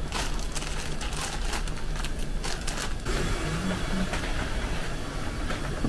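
Shopping cart rolling over a supermarket floor: a steady rattling rumble, with quick clicks and knocks through the first three seconds.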